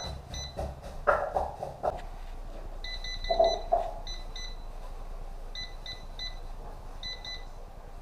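Electronic laser level giving short high-pitched beeps in irregular clusters, including a quick run of them about three seconds in. In the first two seconds and again near the middle come several louder short sounds, lower in pitch.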